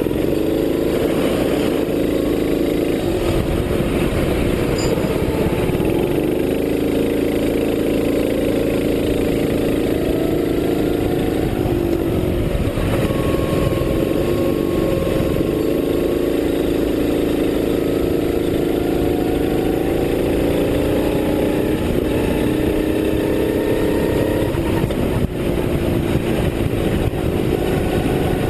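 Racing kart engine heard up close from the onboard camera, running hard. Its note holds steady for several seconds at a time, drops away when the driver lifts off, then rises again under acceleration, several times over.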